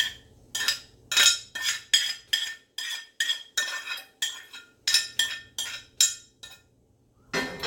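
A metal spoon clinking and scraping against a skillet while sautéed red pepper and onion are knocked out of it: a quick run of ringing metallic taps, about three a second, that stops about six seconds in.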